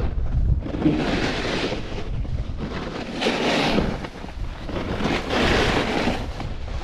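Capita Spring Break Slush Slasher snowboard carving on groomed snow, its edge scraping in three swells of hiss as it turns, with wind rumbling on the microphone, strongest at the start.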